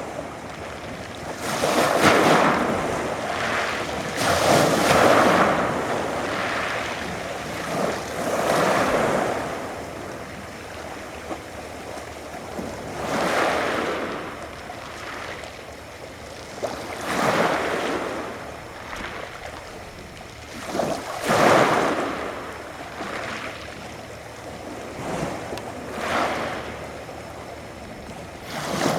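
Adriatic Sea waves breaking and washing onto the shore: each wash swells up and falls away, about every three to five seconds.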